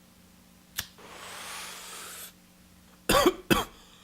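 A man coughing twice, hard, near the end, after a single click and about a second of hiss.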